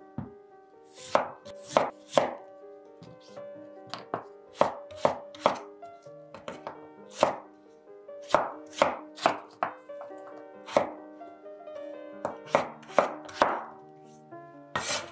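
Kitchen knife chopping a peeled potato on a bamboo cutting board: sharp knocks of the blade through the potato onto the board, often in quick runs of two or three. Soft background music with sustained notes plays throughout.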